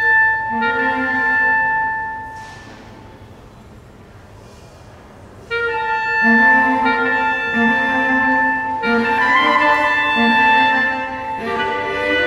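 Clarinet and cello duo playing contemporary classical chamber music in long held notes. The playing drops away about two seconds in and both instruments come back in about five and a half seconds in.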